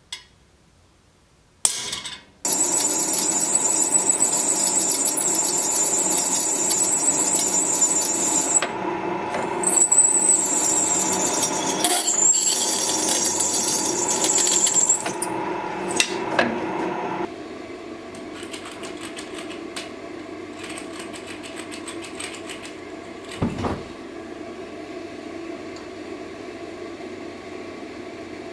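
A single hammer tap on a punch against the steel blade, then a drill press running and boring through the steel blade with a high whine of the bit cutting, for about fifteen seconds. It gives way to a quieter steady machine hum with faint ticking.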